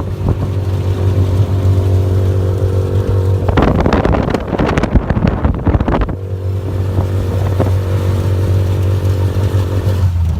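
A motor vehicle's engine running steadily with a low, even hum. A rushing noise rises over it for a couple of seconds in the middle.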